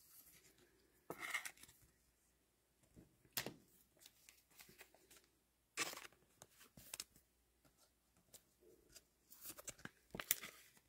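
Faint, scattered rustles and clicks of trading cards and pack wrappers being handled on a table, a few short bursts a couple of seconds apart.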